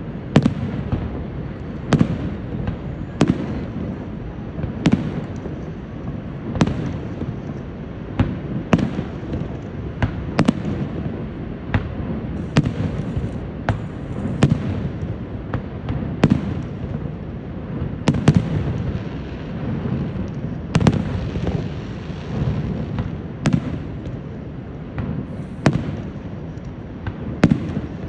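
Fireworks display: aerial shells bursting in sharp bangs, one every second or two, over a steady low rumble.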